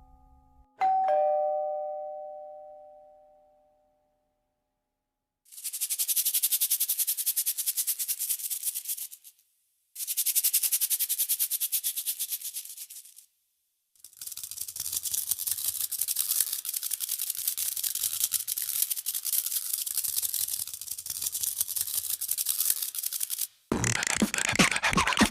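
A doorbell's ding-dong chime, its last note ringing out and fading over a few seconds. After a pause comes fast, dense rattling in three long runs, then a short, fuller burst of noise near the end.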